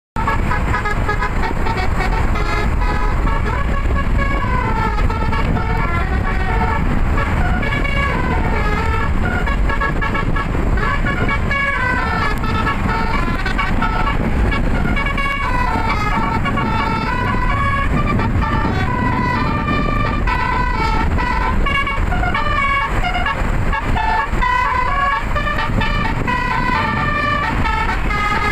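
Indonesian 'telolet' multi-tone bus horn playing a melody as a continuous string of stepped notes that change every fraction of a second, over a steady low rumble.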